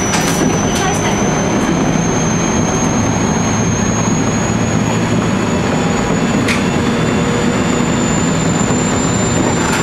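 E127-series electric multiple unit running, heard from the cab. A steady wheel-and-rail rumble runs under a thin high whine that climbs slowly in pitch as the train picks up speed. A few sharp clicks come near the start and about six and a half seconds in.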